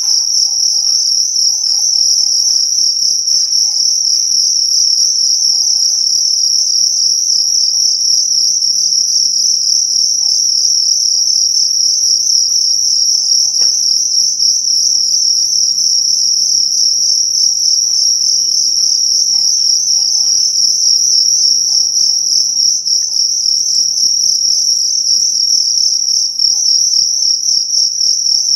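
Cricket chirping in one continuous high-pitched trill, loud and unbroken.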